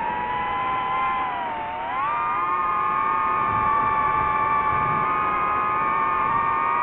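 DJI FPV drone's motors and propellers whining in flight; the pitch sags about a second and a half in, then climbs at about two seconds and holds steady.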